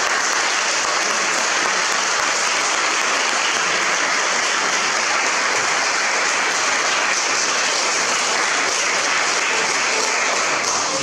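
Wedding guests applauding the newly married couple: steady, dense clapping that eases off at the very end.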